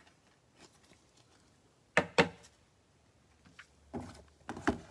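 Cardboard trading-card hanger boxes being handled and set down on a tabletop. There are two sharp knocks in quick succession about two seconds in, then a cluster of softer thuds and scrapes near the end as the boxes are shuffled into place.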